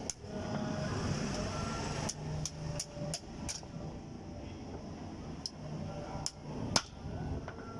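Hammer striking steel, about nine irregular blows with short metallic rings, the loudest near the end, over a steady low background rumble.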